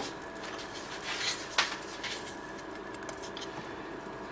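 Spatula and a second utensil knocking and scraping lightly in a non-stick frying pan while an omelette is rolled: a few soft clicks, the sharpest about a second and a half in, over a steady faint hum.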